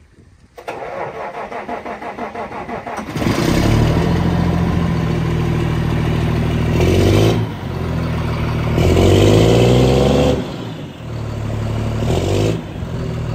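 Claas Xerion tractor's diesel engine cranked on the starter with a rhythmic chugging for about two and a half seconds, catching about three seconds in. It then runs loud and is revved up and back down three times.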